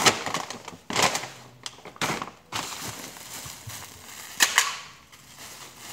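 Plastic packets of steel wool being handled and crinkled, with several sharp snaps.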